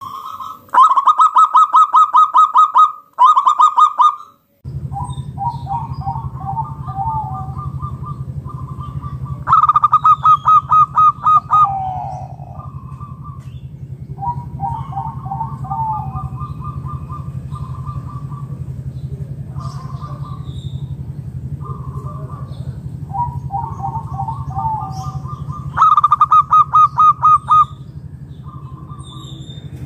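Zebra dove (local perkutut) cooing: three loud phrases of rapid stuttering notes, near the start, about ten seconds in and near the end, with softer cooing phrases repeating between them. A steady low hum runs under the calls from about five seconds in.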